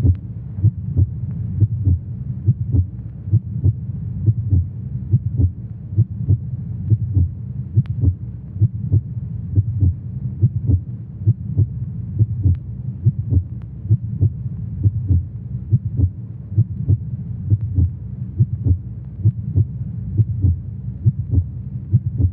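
Heartbeat sound effect: a steady run of low thumps, about two a second.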